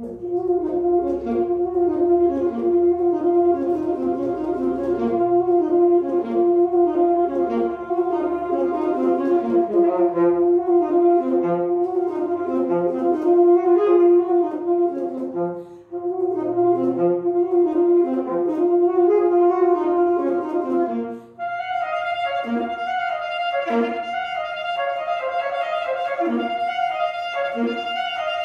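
Alto saxophone playing a melody over an accompaniment that holds one long note; a little past two-thirds of the way through the accompaniment changes to a higher held tone with short low notes at a regular beat.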